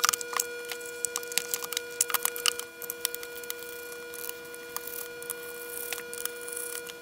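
Plastic case halves of a ToolTop ET829 handheld scopemeter being pried apart and handled: a run of sharp plastic clicks and small knocks, over a constant faint hum.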